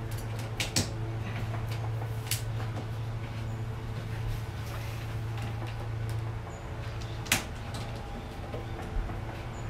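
Sharp knocks and clicks from a wall-mounted whiteboard being handled and pressed against the wall, about five of them, the loudest about seven seconds in, over a steady low hum.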